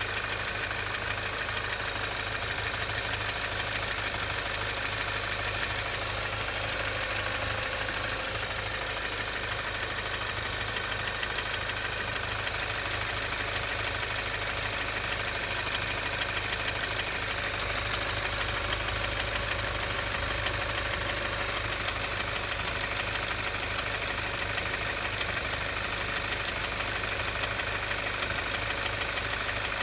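Audi A4 B8's 2.0 TFSI turbocharged four-cylinder engine idling steadily with a knock that the owner calls strange and cannot identify.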